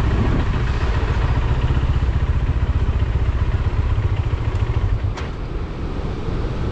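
Motorcycle running while being ridden, a steady low rumble that eases off about five seconds in as the bike slows.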